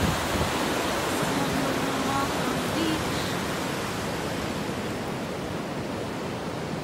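Ocean surf breaking and washing up the beach: a steady rushing noise that eases off slightly toward the end.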